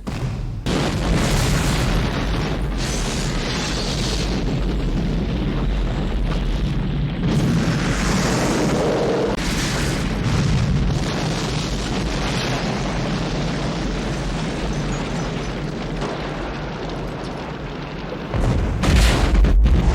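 Building explosion sound effects: a blast about a second in is followed by a long, dense rumble, then a second, louder blast comes in near the end.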